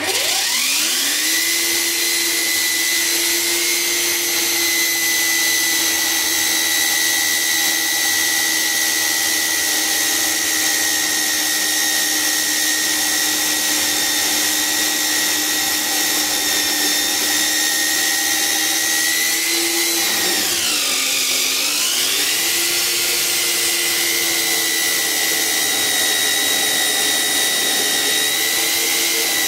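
Parkside metal-cutting bandsaw starting up with a rising whine, then running at a steady high whine as its blade cuts through a square steel tube. About twenty seconds in, the pitch sags and climbs back, as the motor briefly slows and picks up again.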